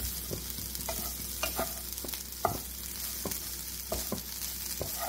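Spiced cauliflower cooking dry (no water added) in a nonstick pan with a steady sizzle. A spatula stirs through it, scraping and knocking against the pan irregularly, about twice a second.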